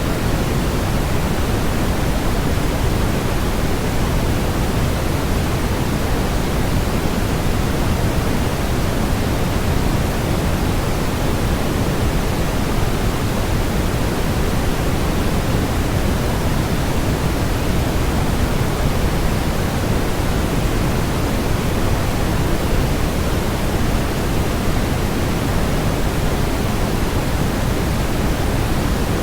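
Continuous generated white-noise track: a steady, unchanging hiss, heaviest in the low end and thinning toward the highs.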